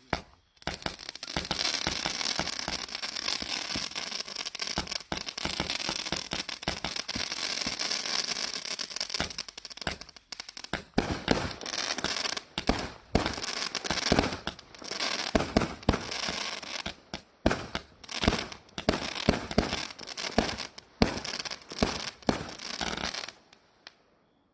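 A 138-shot, 0.8-inch multi-shot fireworks cake firing. For about the first ten seconds it is a dense, unbroken barrage of shots and crackle. After that come separate loud reports in quick succession, which stop about a second before the end.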